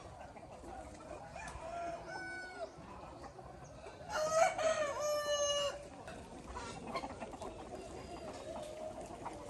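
A rooster crows, one long call about four seconds in, with a shorter call about two seconds in, over hens clucking and calling.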